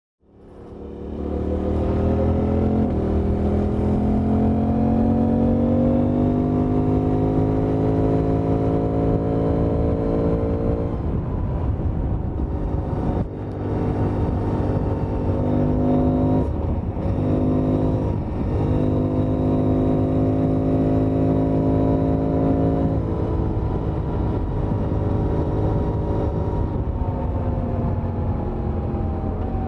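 Suzuki V-Strom 800DE's stock parallel-twin engine under hard acceleration, heard from the rider's seat. The pitch climbs, drops briefly at each gear change and climbs again, then holds steady in a higher gear, over steady wind noise. The sound fades in from silence at the start.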